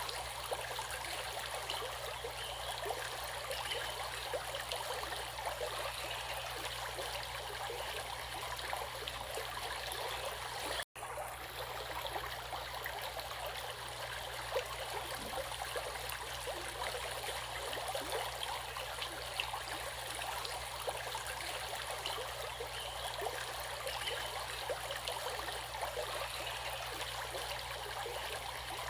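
Running water of a stream, a steady burbling and splashing flow. It cuts out for an instant about eleven seconds in.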